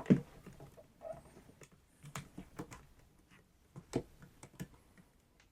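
Scattered light clicks and taps of a small circuit board and hand tools being handled on a bench, with one sharper knock at the start as the board is set down or turned over.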